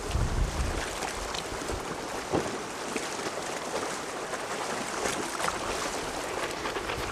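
Wind buffeting a VHS camcorder's built-in microphone over a steady rushing hiss of wind and choppy sea. The low rumble of the gusts eases off after about two seconds.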